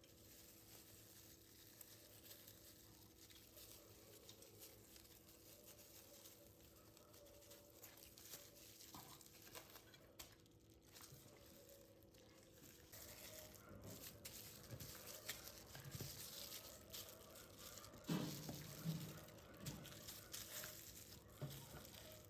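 Quiet room with faint rustling and light clicks over a low steady hum, with a few louder knocks and handling sounds about eighteen seconds in.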